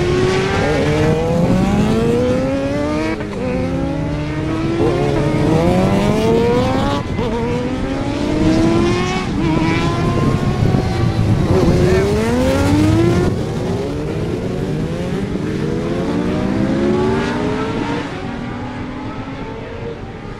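Racing motorcycle engines slowing into a hairpin and accelerating out through the gears, several bikes at once. Each engine's pitch drops as it slows and then climbs in repeated rising steps, one for each gear change.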